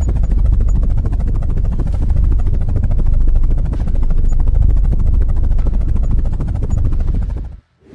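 Navy Seahawk helicopter hovering low overhead with a rapid, even rotor beat, strongest in the low end. It cuts off suddenly near the end.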